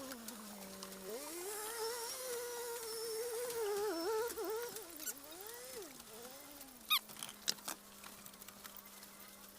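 Jowo Super chickens calling: one long wavering call that rises, holds and then wobbles down for about five seconds, followed by a sharp, high, falling peep about seven seconds in.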